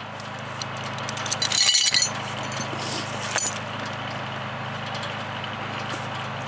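Farm tractor engine running steadily, with a burst of metal clinks and rattles of rigging hardware about a second and a half in and another short clink about three and a half seconds in.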